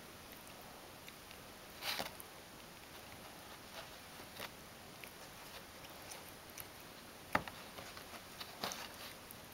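Ragdoll cat biting and chewing a kiwi-vine twig: faint, scattered crunches and clicks, with a louder crunch about two seconds in and a sharp click a little past seven seconds.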